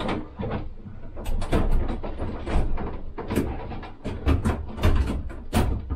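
Irregular clunks, knocks and scrapes of a soft starter's metal chassis being set into a steel control enclosure and hung on its mounting bolts.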